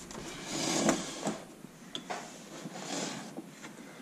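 A flat-screen TV being shifted across a workbench by hand: soft scraping and rubbing that swells and fades twice, with a couple of light knocks.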